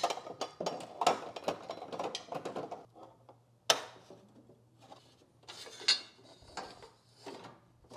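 Plastic accordion side panel and its bracket being slid and fitted onto a Dreo window air conditioner: clattering plastic rattles and clicks, with one sharp click a little under four seconds in.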